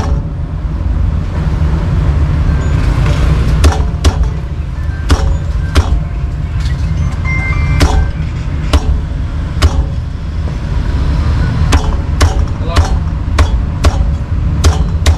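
Meat cleaver chopping roast duck on a thick wooden chopping block. Sharp knocks start about three and a half seconds in, come at roughly one a second, and quicken near the end. Under them runs a steady low rumble of road traffic.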